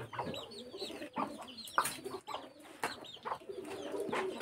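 Domestic fowl close by: chickens clucking and many quick, high chirps repeating, with a few sharp clicks in between.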